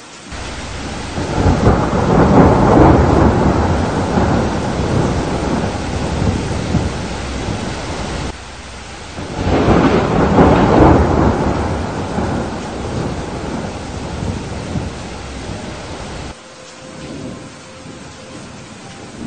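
Two long rolls of thunder over steady rain. The first builds about a second in and fades slowly before cutting off abruptly. The second rises about nine seconds in and also stops suddenly, leaving only rain.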